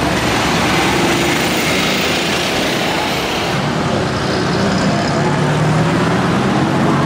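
Big motorcycle engines running, a loud steady rumble.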